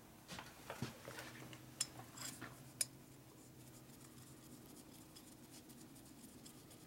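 A few faint metallic clicks and clinks as bolts are handled and fitted into the aluminium cylinder heads of a Harley-Davidson FXR engine, in the first three seconds, over a low steady hum.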